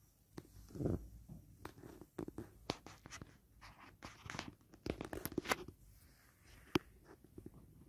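Faint rustling and scratching of fabric with scattered small clicks, as a baby monkey stirs against a doll and bedding. There is a soft thump about a second in and a sharper click near the end.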